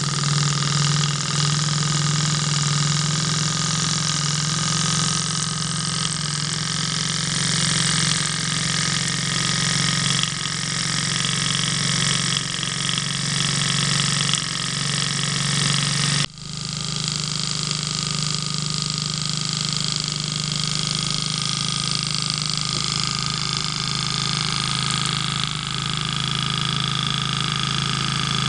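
Triple-expansion model steam engine running on steam: a steady fast-running hum with plenty of steam hiss. The sound drops out for an instant about halfway through, then goes on unchanged.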